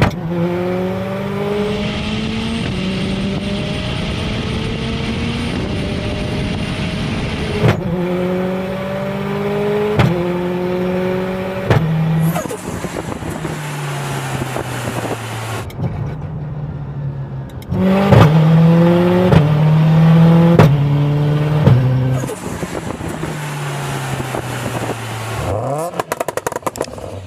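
Tuned turbocharged Subaru WRX STI flat-four engine accelerating hard through several gears. The pitch climbs in each gear and drops at each change, and sharp cracks sound at some shifts. It winds down, pulls hard again, and near the end gives a rapid run of crackles.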